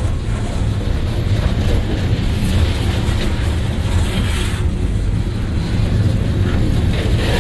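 CSX freight train's open-top hopper cars rolling past close at rail level: a steady, loud low rumble of steel wheels on the rail, with a few clanks mixed in.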